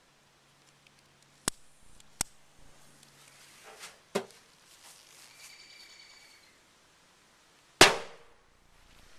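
A single USA Mini Dynamite firecracker going off with one sharp bang near the end, after a few sharp clicks and a knock.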